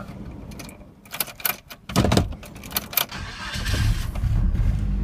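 1993 Nissan pickup's 2.4-litre four-cylinder engine being restarted: keys rattle and click at the ignition, the starter cranks about two seconds in, and the engine catches and settles into a steady idle.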